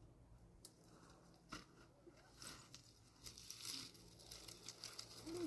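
Near silence with faint rustling and a few soft scattered clicks, and a brief faint call near the end.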